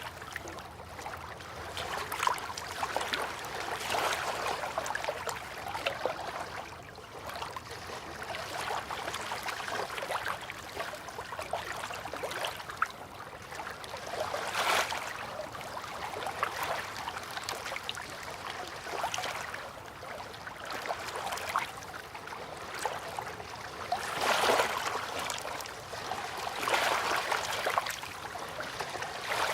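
River water lapping and trickling, with small splashes and a louder swell every few seconds.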